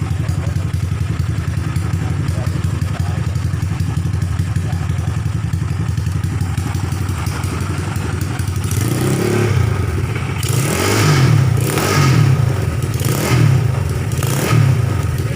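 Viar trail motorcycle engine, stroked up to 260 cc, idling steadily through its exhaust. From about nine seconds in it picks up, then revs in four short throttle blips before dropping back toward idle.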